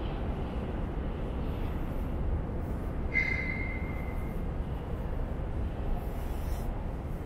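Underground metro platform ambience: a steady low rumble, with a brief high-pitched squeal about three seconds in.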